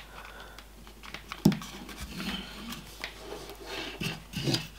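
Handling noise from an all-in-one liquid CPU cooler being moved about on a table: scattered clicks and rustles of its pump block, tubes and radiator, with a sharp knock about a second and a half in and a few more knocks near the end.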